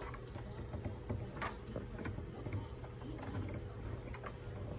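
Sewing machine's needle mechanism worked by hand to draw the bobbin thread up through the needle plate: scattered light mechanical clicks over a low steady hum.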